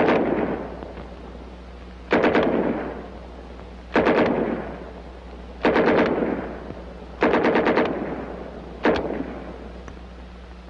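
WWII submachine guns (MP 40, Thompson M1928A1 and M3 grease gun) firing six short bursts of automatic fire, one every one and a half to two seconds. Each burst is a quick run of several shots that rings out in a fading echo. A steady low hum lies under it.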